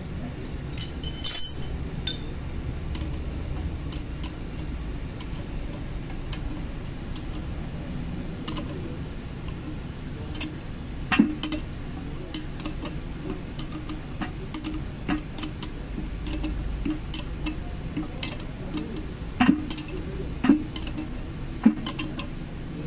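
Steel box-end wrench clicking and clinking against the bolts of a steel steering knuckle as it is fitted onto the bolt heads and turned, in short irregular metallic ticks with a louder clatter about a second in.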